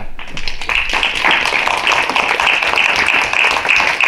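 A roomful of people applauding, the clapping starting and filling in within the first second.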